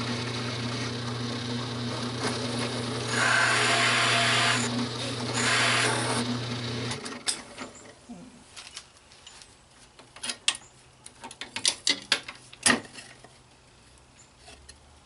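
Drill press running with a 1-inch hole saw cutting into a plywood block, two louder spells of cutting noise about three and five seconds in. The motor shuts off about seven seconds in, followed by a scatter of light knocks and clatter.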